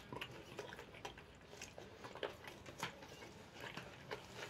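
A person chewing fresh parsley close to the microphone: quiet, irregular mouth clicks and smacks.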